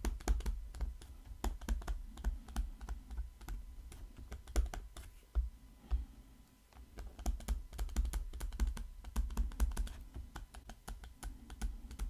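Stylus writing on a tablet: quick, irregular taps and clicks of the pen tip on the surface, each with a dull low thud, and a short lull about six seconds in.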